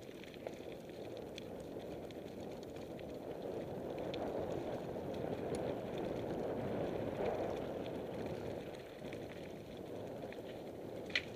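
Mountain bike tyres rolling over a gravel trail, a steady rough rumble that swells in the middle, with scattered small clicks and rattles from the bike and one sharp click near the end.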